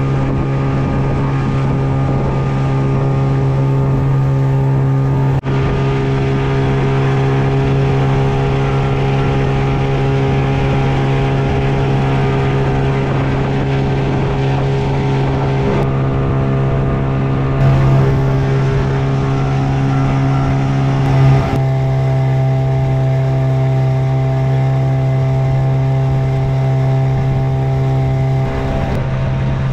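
Hangkai 12 hp outboard motor running at a steady cruising speed, with the hull splashing through the water and the wake hissing behind it.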